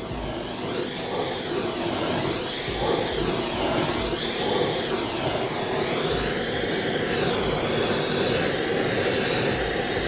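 Handheld gas torch flame burning against a bent hollow aluminum rectangle tube: a steady rushing hiss that wavers slowly in tone.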